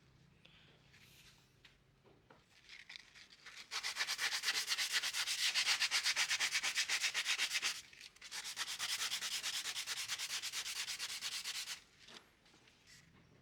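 Rapid back-and-forth strokes of abrasive on wood, like hand sanding, in two runs of about four seconds each with a short pause between.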